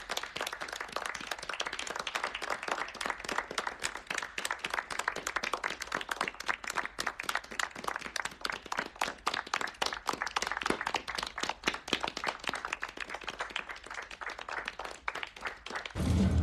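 Applause: a group of people clapping steadily, many quick overlapping claps, for the whole stretch.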